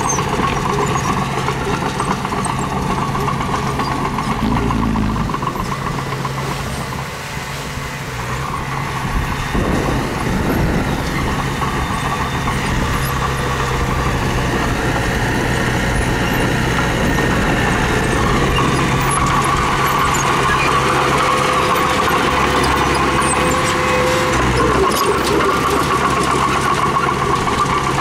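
Diesel engine of a mini bulldozer working, running steadily, easing off briefly about seven seconds in and picking up again about two seconds later.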